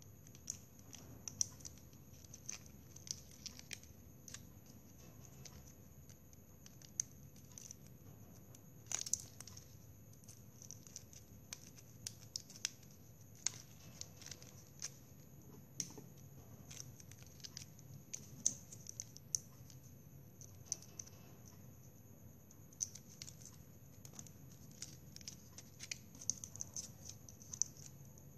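Plastic drinking straws clicking and rustling faintly as hands fit cut straw leaf pieces onto a stem, in irregular small ticks and taps with a few sharper clicks.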